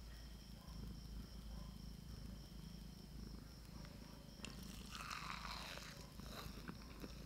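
A cat eating a bite of soft omelette: faint chewing and licking over a low steady rumble. About four and a half seconds in comes a louder patch of rustling and small clicks.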